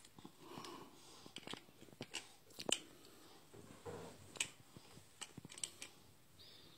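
Faint, irregular clicks and taps of large plastic toy building bricks being handled and pressed together, as a toy robot that lost a piece is put back together.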